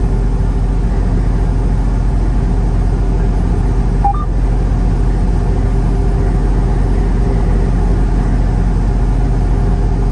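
Semi-truck cab noise while driving on the highway: a steady low engine and road drone with a constant hum. A brief chirp about four seconds in.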